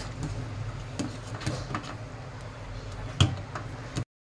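Metal ladle scraping and knocking against a metal pot while stirring thick, simmering phirni, a few separate clicks over a steady low hum, the sharpest about three seconds in. The sound cuts to silence near the end.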